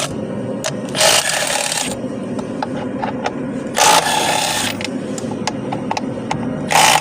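Bolts being loosened with a wrench on the shifter cable mounting: short bursts of fast whirring or clicking about every three seconds, with scattered single clicks between. Under it runs the steady noise of a machine running in the garage to keep it warm.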